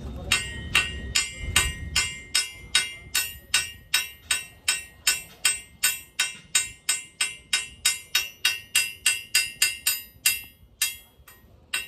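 Small hand hammer tapping on a steel truck leaf spring during a repair of the broken spring: sharp metallic strikes with a short ring, about two to three a second, pausing briefly near the end.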